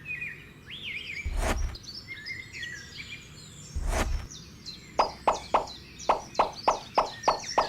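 Birds chirping in the background, with two heavy thuds, then a quick run of about ten sharp taps, roughly four a second, near the end.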